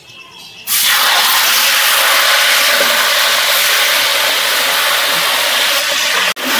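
Marinated chicken pieces tipped into a large pot of hot oil, setting off loud, steady sizzling that starts suddenly under a second in. It breaks off for an instant near the end.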